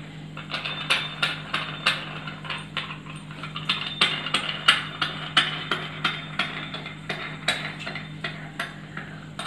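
Stainless-steel murukku press with its crank handle being turned: metal parts clicking and scraping against each other in a steady run of about three short clicks a second.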